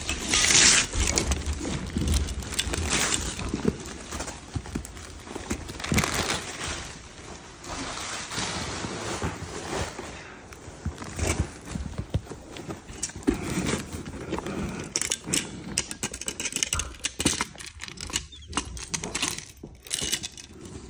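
Irregular rustling and crinkling broken by light metallic clicks and rattles: capuchin monkeys handling paper and packaging and working the metal latches on a wooden busy board.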